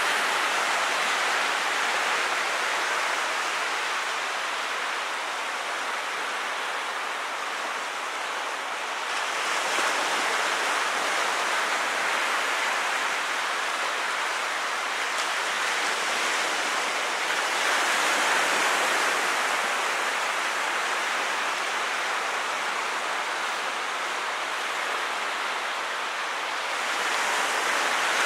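Small ocean waves breaking and washing up a sandy beach: a steady hiss of surf that swells about every nine seconds as each wave comes in.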